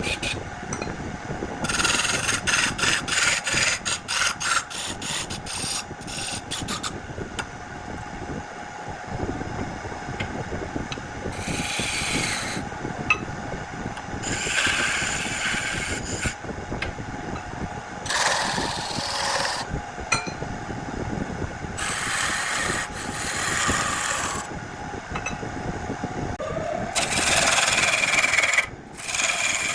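Wood lathe running with a steady motor hum while a tool is pressed against the spinning jackfruit wood, scraping it in repeated passes of a second or two. There is a quick run of ticking contacts in the first several seconds.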